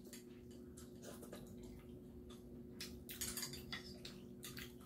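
Faint eating sounds: chewing and mouth clicks, with scattered light ticks of metal chopsticks against a bowl and plate, over a faint steady hum.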